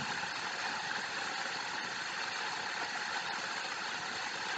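Steady background noise: an even hiss with no distinct events, unchanging throughout.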